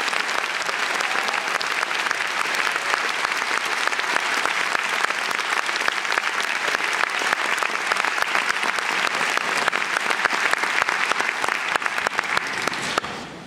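Audience applauding steadily at the end of a choir performance, the clapping dying away about a second before the end.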